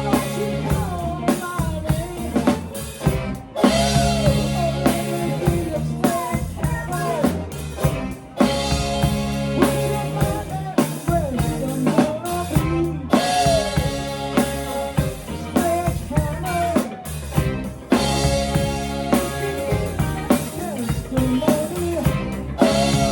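A song with a drum kit keeping a steady beat under bass and a sung melody.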